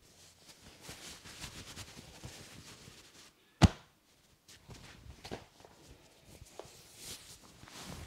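Hands rubbing and kneading a man's shoulders through a cotton shirt, soft rustling and light clicks, with one sharp, loud snap a little over three and a half seconds in and a few fainter clicks after it.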